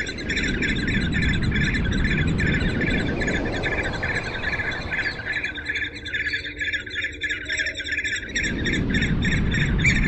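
Bird chirping: a steady, rapid series of high chirps, about four or five a second, without a break. A low rumbling noise runs underneath and drops out for about two seconds after the middle.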